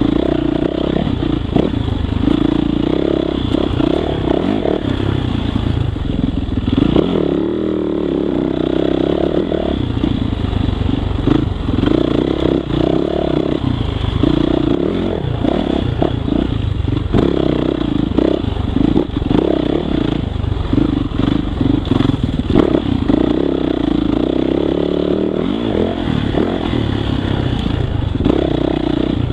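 2018 Yamaha YZ450F's single-cylinder four-stroke engine being ridden hard, the revs rising and falling every second or two with the throttle, with clattering knocks from the bike over rough trail.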